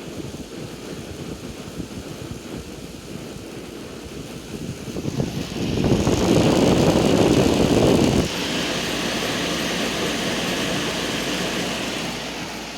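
Hampton Bay 10,000 BTU window air conditioner running on high fan in cooling mode, its fan moving a steady rush of air. About five seconds in the rush grows much louder and deeper, then cuts off suddenly about eight seconds in, leaving a steadier, higher airflow hiss.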